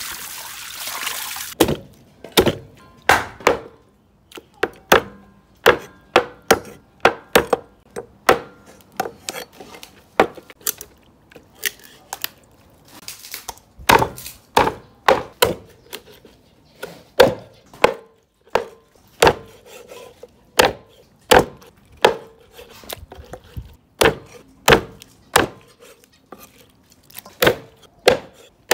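Water pouring over a plucked goose in a steel bowl for the first second or so, then a cleaver chopping the goose into pieces on a wooden board: repeated sharp chops, roughly one or two a second, with a brief pause about halfway.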